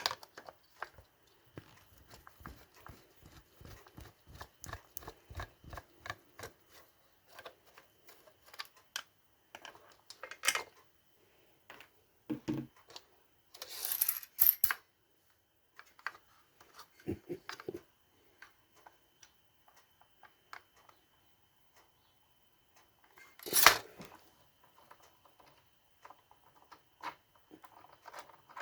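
Small clicks, knocks and scrapes of hand tools and plastic and metal parts being handled while a cordless circular saw is taken apart: a run of quick, even little clicks over the first several seconds, a brief scraping rustle in the middle, and one sharp knock near the end, the loudest sound.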